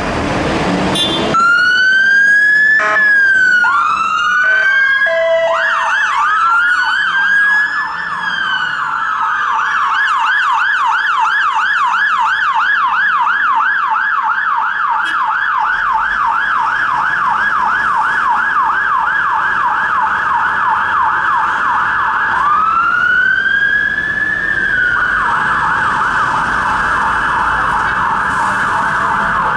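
Electronic sirens of two London fire engines, a Mercedes-Benz Atego pump ladder and an Econic aerial ladder platform, responding. A short bull-horn blast opens, then slow wails and fast yelps from both overlap. They settle into a steady fast yelp of about three sweeps a second, with one slow wail rising again about two-thirds through.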